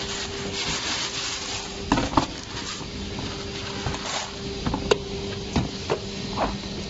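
Colour sorter machine running with a steady hum, with scattered irregular knocks and rattles: a pair about two seconds in and several more in the second half.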